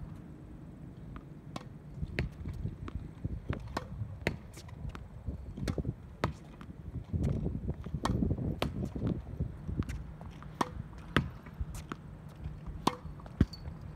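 Tennis ball rallied against a practice wall: a string of sharp pops from the racket strings, the ball striking the backboard and bouncing on the hard court, over a steady low rumble.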